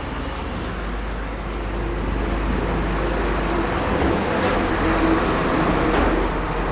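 Steady background rumble and hiss like distant road traffic, swelling a little in the middle, with a couple of faint clicks.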